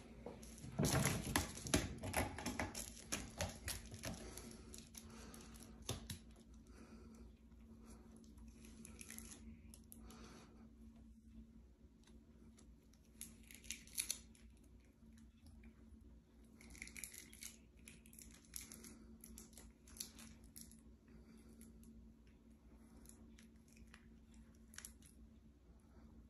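A cat's taped paws clawing at a sisal-rope scratching post: a close run of rasping scrapes and clicks for the first few seconds. Later come scattered short crinkles and clicks as the cat bites and pulls at the tape on its paw.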